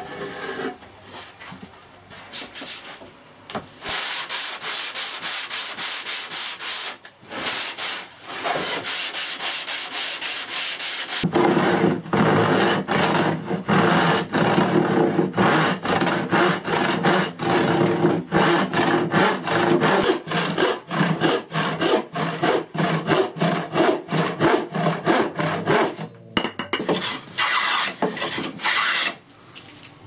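A handsaw cutting a pine board in rapid, even back-and-forth strokes. The strokes become louder and fuller about a third of the way in, with brief pauses between runs.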